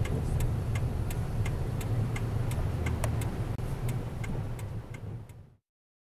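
Car cabin road noise: a steady low engine and tyre rumble while driving on a snowy road, with an even ticking about three times a second; it all fades out about five and a half seconds in.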